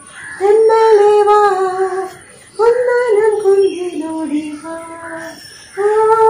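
A woman singing a Malayalam Onam song solo, in long held phrases with short pauses for breath between them.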